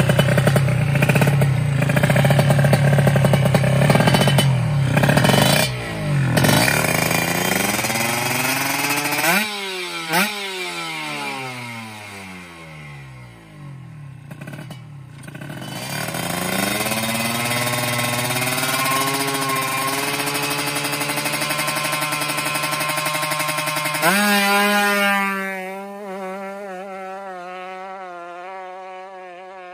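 Two-stroke Kawasaki Ninja drag bike revving hard at the start, then pulling away with its pitch sweeping up and dropping back at each gear change, fading into the distance.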